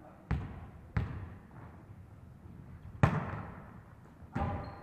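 A volleyball being struck by hands or arms four times in a rally, the third hit the loudest, each followed by a short echo in a large hall.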